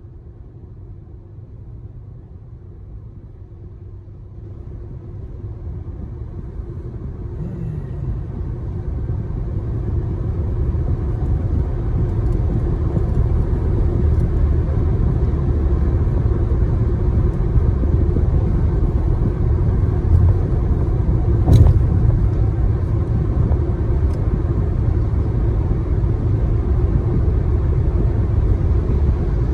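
Low, steady rumble of a moving vehicle, growing louder over the first dozen seconds and then holding, with one sharp click a little past twenty seconds.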